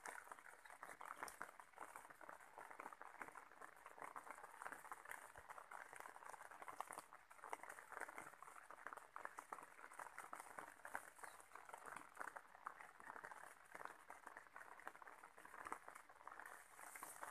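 Faint, steady patter of rain and water drops falling on fig leaves, a dense run of tiny ticks.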